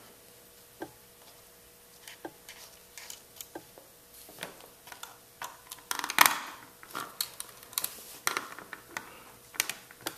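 Small screwdriver and fingers working the tight plastic retaining clips of a BMW E36 climate control unit's fan motor: scattered plastic clicks and taps, sparse at first, then busier in the second half, with a louder clatter just past the middle.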